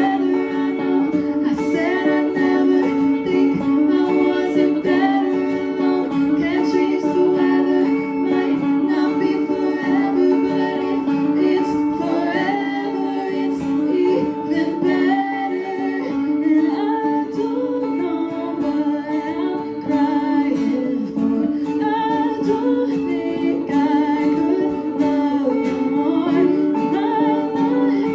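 A song playing: singing over plucked guitar.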